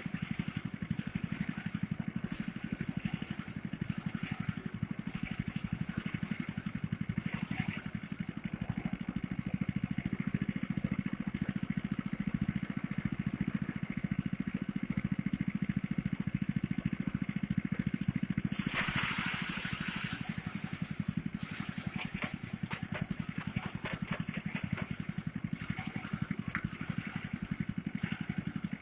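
Small engine of a motorized rice thresher running steadily, with scattered faint ticks over it. About two-thirds through, a loud hissing rush lasts nearly two seconds.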